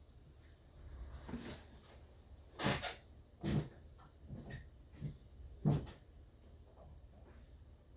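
A series of hard knocks and clunks, about six over five seconds, the loudest about a third of the way in, over a low steady hum.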